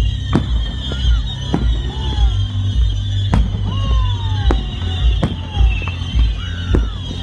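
Fireworks going off, a sharp bang about once a second, over loud music with a steady beat.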